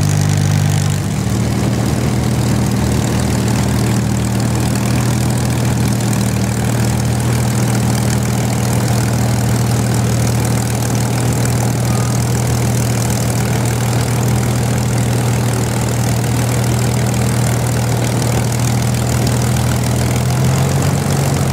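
Spitfire Mk XVI's Packard Merlin V12 idling on the ground. The engine note drops to a lower, steady idle about a second in and rises slightly near the end.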